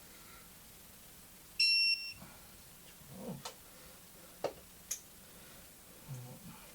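A single short electronic beep from a digital torque wrench, signalling that the set torque has been reached on a gearbox cover nut. A few light clicks and knocks follow.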